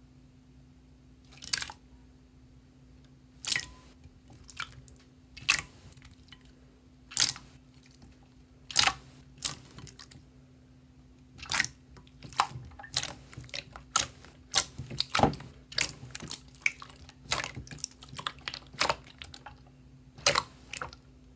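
Fingers pressing and squeezing thick pudding slime in a glass bowl, making sharp pops and squelches. The pops come about every two seconds at first and quicker, in clusters, from about halfway through, over a faint steady hum.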